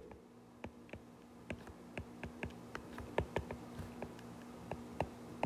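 Stylus clicking on a tablet screen during handwriting: a faint, irregular string of short ticks, over a faint steady hum.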